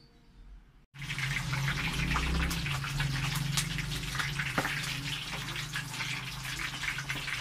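Chicken deep-frying in hot oil: a dense, steady sizzle full of small crackles and pops, cutting in suddenly about a second in, with a low hum underneath.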